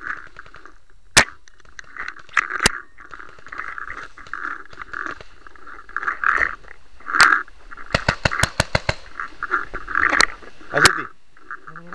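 Stock-class pump paintball markers firing on 12-gram CO2: single sharp pops spaced a few seconds apart, then a quick run of about eight shots around eight seconds in, and two more pops near the end.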